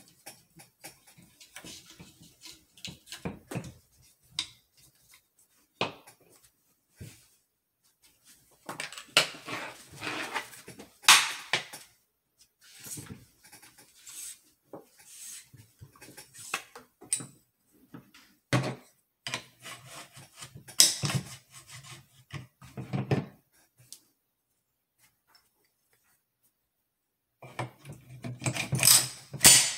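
American Tactical Omni Hybrid AR pistol parts being handled on a tabletop: scattered clicks, knocks and rubbing of metal and polymer as the upper receiver is worked and brought to the lower for reassembly. There are clusters of louder clatter, then a few seconds of near silence shortly before the end.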